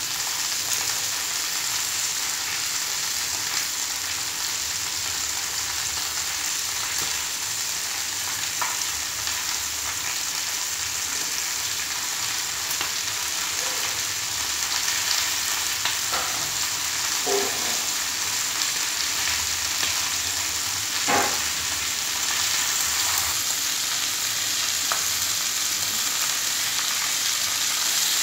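Grilled meats and sausages sizzling in their fat on a dark tray over a gas burner, a steady hiss as the cheese slices on top melt. A few faint ticks and one sharper crackle pop out past the middle.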